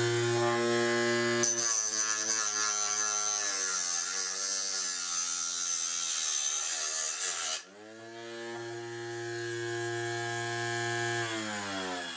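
Homemade 3D-printed chop saw with an 895 DC motor run on 24 V, its abrasive cutting disc grinding through a thin metal pipe: a high hiss over the motor's whine, which dips and wavers under the load. About seven and a half seconds in, the disc breaks through, the hiss stops and the whine climbs back to full speed. Near the end the motor winds down.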